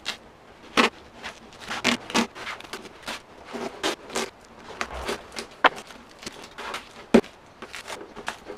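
Masking tape being pulled off its roll in a series of short rasps and pressed down by hand, with two sharp clicks near the end.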